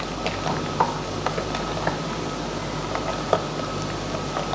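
A hand mixing thick ground mash (urad) dal batter with spices in a glass bowl: soft wet squelching with small irregular clicks as fingers work the batter against the glass.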